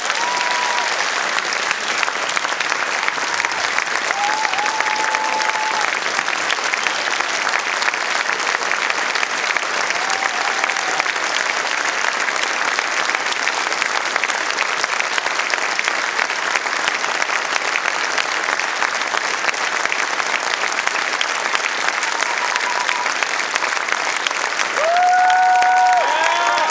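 Audience applauding steadily and loudly at the end of a talk, with a few short calls from the crowd rising above the clapping, more of them near the end.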